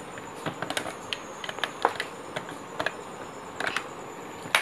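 Scattered, irregular light clicks and taps, with some rustling, as an LED bulb and its paper packaging are handled on a shop counter; one sharper knock comes near the end.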